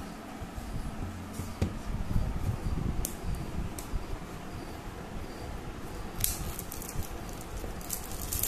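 Handling noise from a shrink-wrapped smartphone box: plastic wrap rustling and crinkling, with several sharp clicks and a denser crackle near the end.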